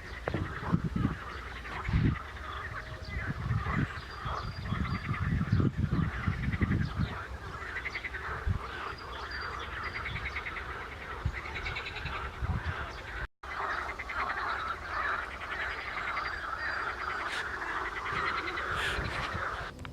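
A chorus of many frogs calling together, a dense pulsing trill that goes on throughout, with low thumps in the first half. The sound breaks off for an instant about thirteen seconds in.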